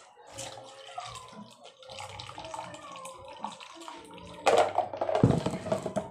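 An orange drink poured from a pitcher into a paper cup: a splashing pour of about a second and a half near the end, the loudest sound. Before it, quieter eating sounds.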